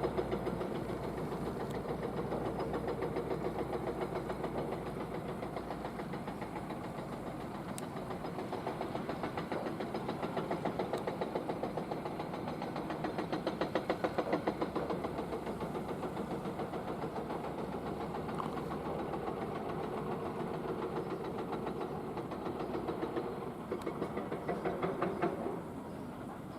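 Diesel engine of an excavator running with a rapid, even beat, swelling louder a few times as it works.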